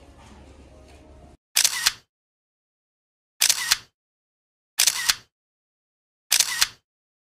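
Camera shutter sound, four double clicks about one and a half seconds apart, with dead silence between them.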